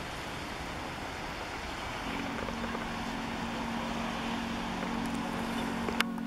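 Wet city street in the rain: a steady hiss of traffic and rain, with a steady low hum joining about two seconds in and a single sharp click near the end.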